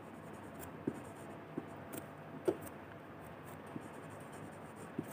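Whiteboard marker writing on a whiteboard: a series of short, faint strokes and taps of the felt tip as a word is written.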